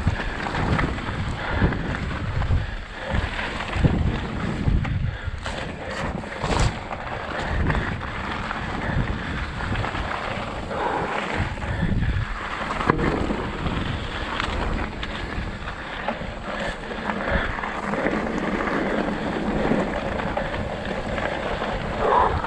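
Wind buffeting the microphone while riding a mountain bike down a dirt trail, with tyre rumble and occasional knocks from the bike over rough ground.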